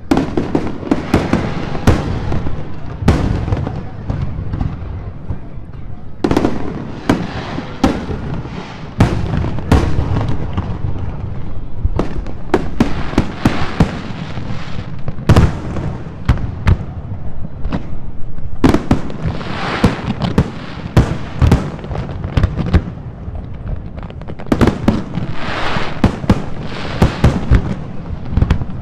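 Aerial fireworks display nearing its finale: a rapid, irregular barrage of shell bursts, many sharp bangs close together, with stretches of crackling between them.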